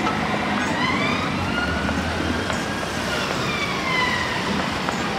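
Emergency vehicle siren wailing, one slow rise in pitch then a slow fall, over steady street traffic noise.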